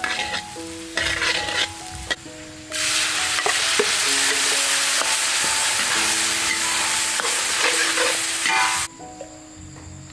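Stir-fry in a steel wok: a metal spatula clicks and scrapes against the wok while food sizzles in hot oil. About three seconds in, a loud sizzle starts and holds for about six seconds, then cuts off suddenly near the end.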